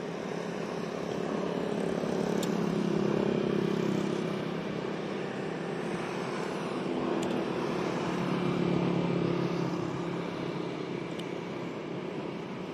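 Motor-vehicle engine noise from passing traffic, swelling twice and easing off.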